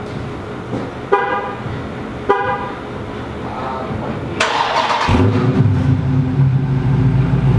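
Two short beeps, then a Dodge Charger 392's 6.4-litre HEMI V8 cranks and fires about four and a half seconds in and settles into a steady, deep idle. The exhaust has its rear mufflers removed and the mid mufflers still in place, and the car sounds a little beefier.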